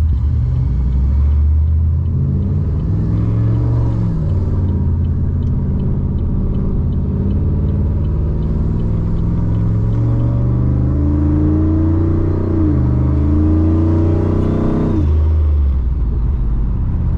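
A turbocharged LS V8 in a VF Commodore is driving with its switchable exhaust mufflers open, running unmuffled. The engine note rises and falls with the throttle: it drops about 4 s in, climbs again from about 10 s, and falls away sharply about 15 s in.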